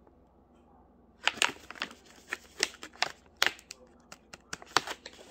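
Plastic snack pouch crinkling as it is handled and turned over in the hands, a quick irregular run of sharp crinkles starting about a second in.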